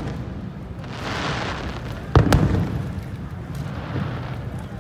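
Aerial fireworks: a hissing crackle about a second in, then two sharp bangs of shells bursting a little after two seconds, over a low background rumble.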